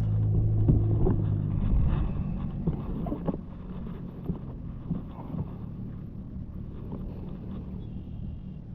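A low, steady engine hum fades out about two seconds in. Low wind rumble on the microphone follows, with scattered light clicks and knocks.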